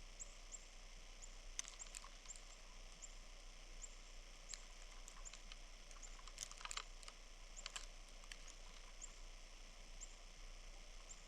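Faint, short, high chirps from small birds, repeating every half second or so, with scattered sharp clicks bunched around the middle, over a steady hiss and a low hum.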